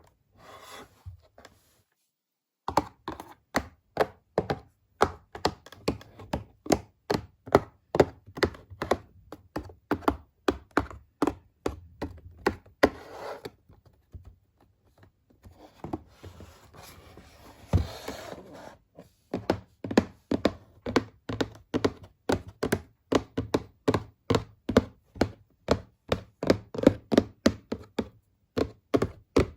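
A quick series of sharp taps and knocks, about two to three a second, broken a little past the middle by a few seconds of rustling and one heavy thump.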